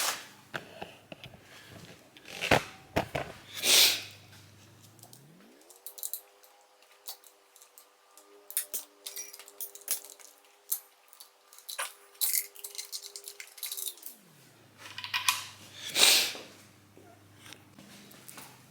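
Clicks, clinks and rustles of small motorcycle parts being handled and set down on a workbench, with a few louder knocks, the loudest near the end.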